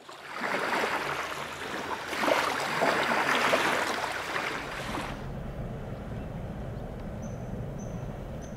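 Small waves washing onto a sandy shore in uneven surges. About five seconds in this gives way to a quieter steady low rumble.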